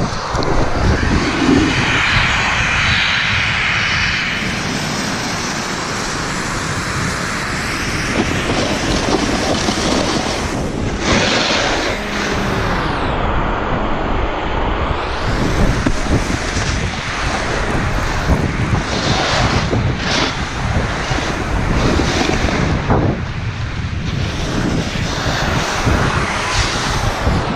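Steady rushing of wind over the camera's microphone while riding downhill on a snowboard, the noise swelling and easing without a break.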